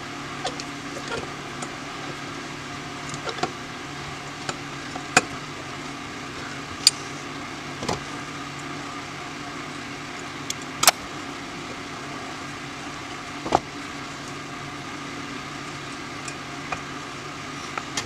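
Scattered sharp metal clicks and taps as small carburetor parts and a screwdriver are handled and set down on an aluminum carburetor body and steel bench top, over a steady faint hum.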